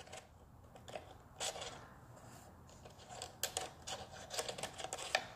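Faint handling sounds of a drill bit being slid into a Drill Doctor sharpener's chuck: a soft scrape about a second and a half in, then a run of small clicks and scrapes of metal and plastic as the bit is worked into place.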